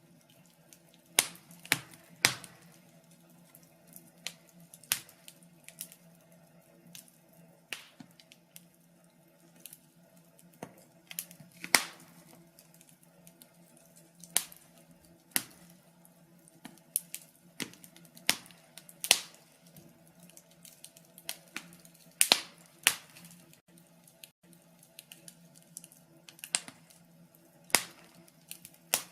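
Wood fire in a fireplace crackling: sharp, irregular pops and snaps of the burning logs, one every second or two, over a faint steady hum.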